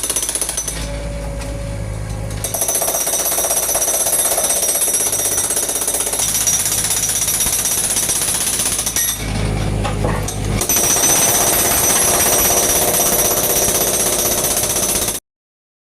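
Jackhammer breaking up concrete, hammering continuously with two short pauses, about a second in and about nine seconds in, and stopping abruptly near the end.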